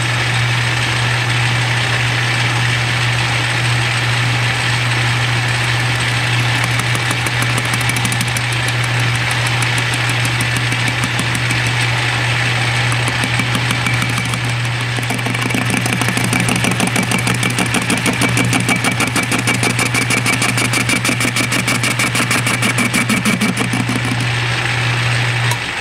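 Metal lathe running under a roughing cut, a carbide-insert tool turning down a rough sand casting: a steady motor hum under the hiss and scrape of the cut. About halfway through a fast, even pulsing comes in, and the lathe cuts off right at the end.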